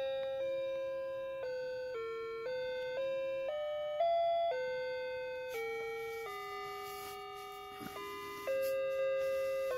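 The built-in electronic music player of an animated Santa figure playing a melody in tinny, chime-like notes, about two a second, each struck and fading.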